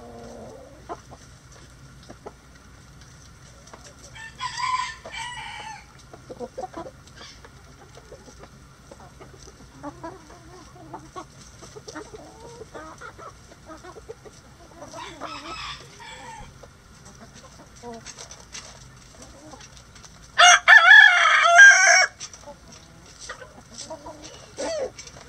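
A flock of chickens feeding: hens clucking softly, with a couple of louder calls, and a rooster crowing loudly for about a second and a half near the end.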